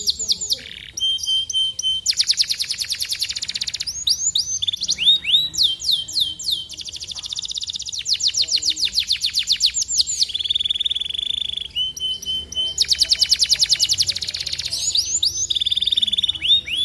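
Domestic canary singing a long, varied song: fast trills of rapidly repeated notes alternating with series of down-sweeping whistles, and a steady held tone about two-thirds of the way through.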